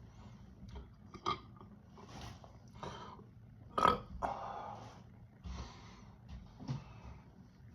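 A person burping a string of short burps from a bellyful of carbonated soda; the loudest, sharpest burp comes a little before halfway.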